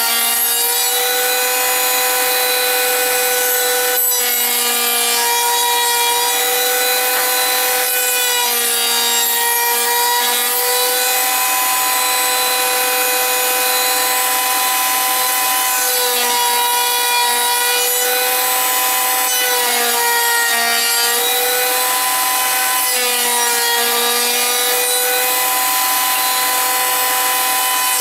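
Power tool cutting wood: a steady, high motor whine that sags slightly in pitch every few seconds as the cutter takes load, over the hiss of the cut.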